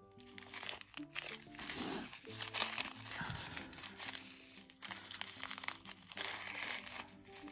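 Small plastic zip-lock bags of resin diamond-painting drills crinkling as they are handled, over soft background music with held notes.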